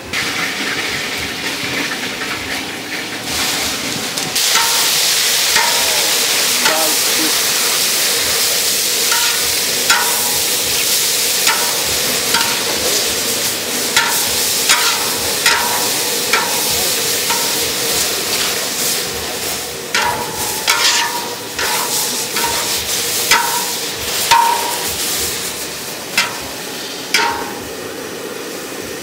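Food sizzling in a hot pan while a metal spatula stirs it, with a run of sharp ringing clinks as the spatula strikes the pan. The sizzle gets louder about four seconds in.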